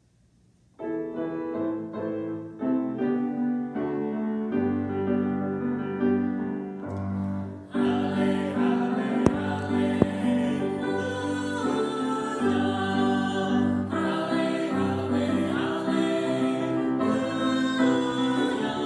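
Church music: an instrumental introduction begins about a second in, and a small group of singers, a man and two women, joins in singing a hymn at about eight seconds.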